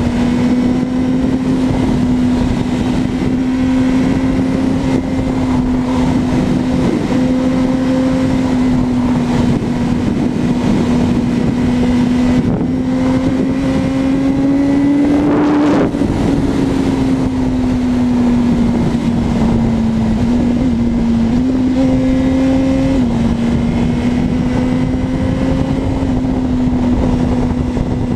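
Sport motorcycle's inline-four engine running at steady high revs while cruising, its pitch creeping up around the middle then easing back, with a couple of small pitch steps later on, over constant wind and road noise.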